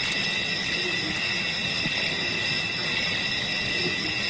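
Steady, high-pitched chorus of several tones, typical of night insects in the bush, with no distinct animal call standing out.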